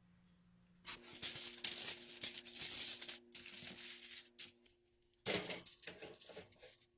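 Crinkling and rustling, like a sheet of foil or wrapping being handled, in two spells: one starting about a second in and lasting about three seconds, and a shorter one past five seconds. A faint steady hum sits underneath.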